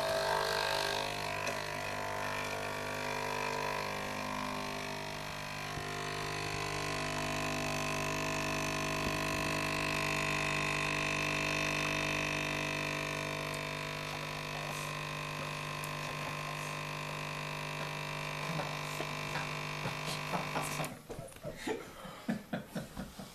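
Coffee machine's pump humming steadily while it brews, stopping suddenly about 21 seconds in, followed by a quick run of light taps.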